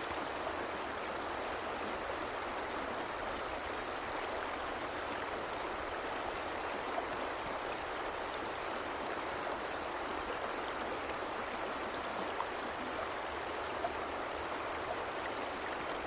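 Mountain stream flowing and splashing over rocks, an even, unbroken sound of running water.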